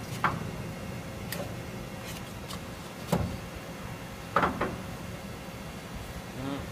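Sharp metallic clicks and knocks from parts of a Bridgeport Romi EZ Path lathe being worked by hand, over the machine's steady hum. There are about six or seven single strikes, and the loudest double knock comes about four and a half seconds in.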